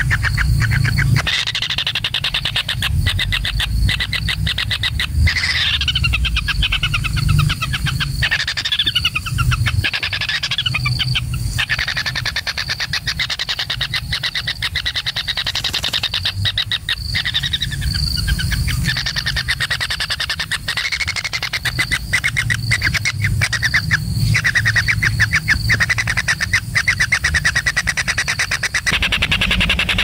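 Kingfisher nestlings calling from the nest: rapidly pulsed, buzzy, rasping calls repeated over and over, over a low steady rumble.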